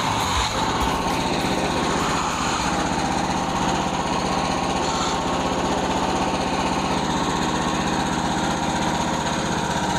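An engine running at a steady speed, with no change in load.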